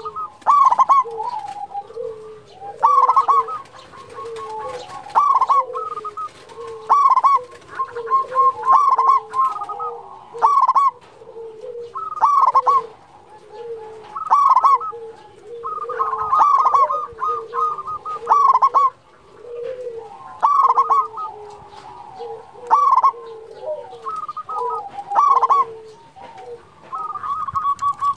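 Zebra dove (perkutut) song: loud coos repeating every one to two seconds, with quieter, lower cooing running beneath them.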